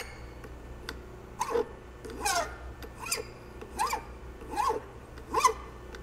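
Steel driveshaft yoke being hand-filed: about seven even back-and-forth strokes, roughly one every 0.8 s, each with a short squeal as the file bites the metal.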